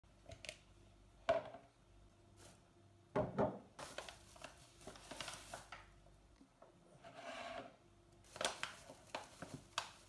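Kitchen items being handled and set down on a countertop: a few sharp knocks about a second and about three seconds in as a plastic mixing bowl, a bag of flour and a bottle are put down, with rustling and handling noise between them and a run of small clicks and crinkles near the end as the flour bag is opened.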